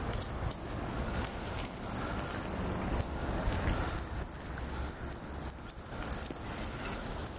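Young river otters rolling and rubbing on dry grass and dirt, making a crackling rustle, over a steady low rumble.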